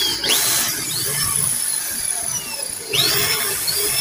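Corded hammer drill set to drill mode (hammer off), running forward with a small metal bit boring into a steel flat bar. The steady motor noise carries short high-pitched squeals and swells briefly about three seconds in.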